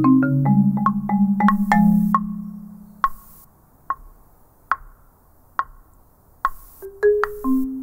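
Solo marimba played with four yarn mallets: a quick run of notes over sustained low bass notes, which then thins out to a single high note struck about once a second, with low notes coming back in near the end.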